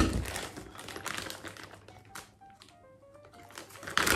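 Clear plastic Ziploc bag being pulled open and handled: a sharp crackle at the start fades into clicky rustling, then loud crinkling returns near the end as a hand reaches into the bag. A few faint short tones sound in the quieter middle.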